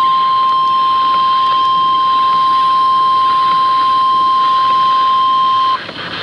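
1050 Hz weather radio warning alarm tone, one steady high beep that is held for several seconds and cuts off near the end, leaving radio hiss. It marks the start of a severe thunderstorm warning broadcast.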